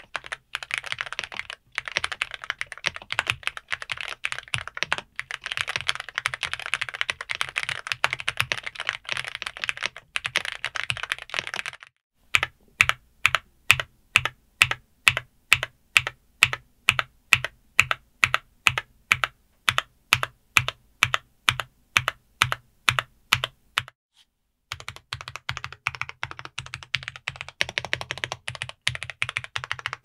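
Dareu EK75 Pro gasket-mount mechanical keyboard, with Dareu Sky V3 linear switches and PBT double-shot keycaps, typed on fast with both hands. From about twelve seconds in, single keys are struck one at a time at an even pace of about two or three a second for about twelve seconds. Then fast typing resumes.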